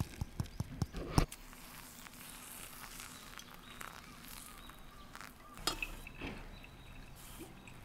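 Ground coffee tapped out of a grinder's catch cup into a paper filter: a quick run of light taps ending in a louder knock about a second in. Then a thin stream of hot water pours quietly from a kettle onto the grounds, with a short metallic clink a little before the end.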